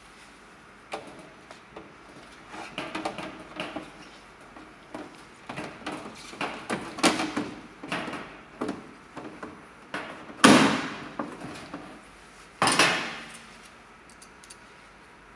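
A white plastic front cover being fitted back onto a wall-mounted unit by gloved hands: scraping, rattling and small plastic knocks, then two loud knocks about two seconds apart as the cover is pushed home.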